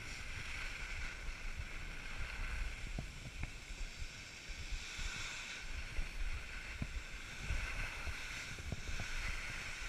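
Steady rushing hiss of skis sliding downhill on packed snow, mixed with wind buffeting the microphone, with a few small ticks.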